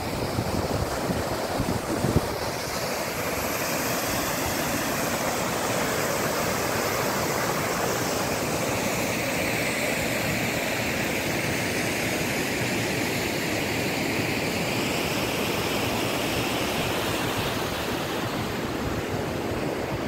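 Rushing water of a rocky mountain stream below a waterfall: a steady, even roar of white water. In the first couple of seconds there are gusts of wind on the microphone.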